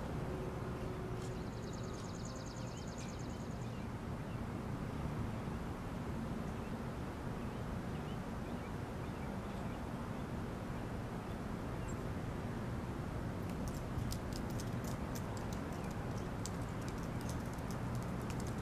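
Outdoor ambience: a steady low rumble, a short high trill about a second in, and a run of irregular sharp clicks and ticks through the last few seconds.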